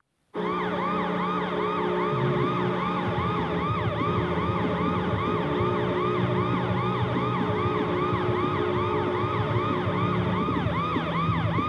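Washington Capitals goal horn: a steady low horn blast with a fast warbling siren over it, about two and a half up-and-down sweeps a second, starting suddenly.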